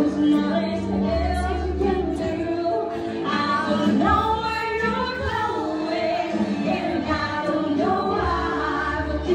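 Music with female singing over an accompaniment that has a steady bass line.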